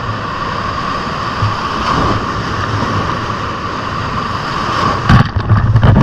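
Ocean surf washing steadily against boulders. About five seconds in, a wave crashes over the rocks in a loud, sudden splash of spray.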